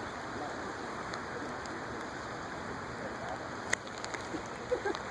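Steady rushing of water, with a sharp click about three and a half seconds in.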